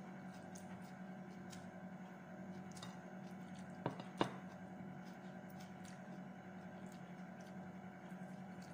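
Quiet eating sounds: chewing, and fingers working rice on a plate, with two sharp clicks about four seconds in over a steady low hum.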